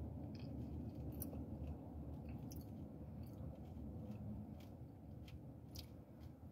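A person chewing a mouthful of soft food with the mouth closed: small, scattered wet clicks over a steady low rumble inside a car.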